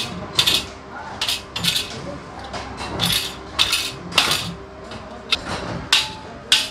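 Sharp metallic knocks and clinks of aluminium ladder rails and rungs being fitted and tapped together, about a dozen irregular strikes, each with a short ring.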